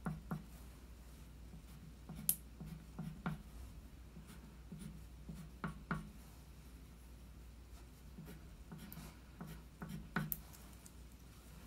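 Black wax crayon writing on paper: faint, short scratchy strokes in small clusters with pauses between them, and a few sharper ticks, as small Chinese characters for grass are written one after another.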